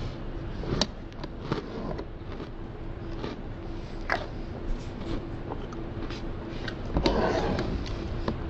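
A spoon clicking and scraping against a plastic container of cereal and milk, with chewing in between; a louder rustling crunch about seven seconds in. A steady low hum runs underneath.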